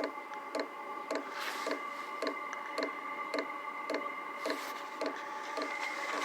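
Diesel heater's fuel dosing pump ticking evenly, about two clicks a second, over a steady motor whine. It is pulsing fuel to the burner during startup, while the heater is still smoking and not yet lit.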